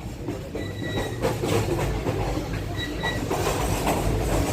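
Moving passenger train heard from inside a carriage: a steady rumble of wheels on the rails, with two brief high squeals, about half a second in and about three seconds in.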